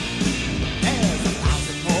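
Punk rock recording: electric guitar over bass and drums, with the drums keeping a steady beat.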